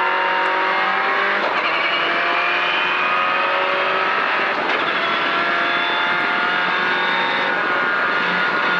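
Race car engine at full throttle heard from inside the cabin, its pitch climbing steadily, with quick gear changes about one and a half and four and a half seconds in.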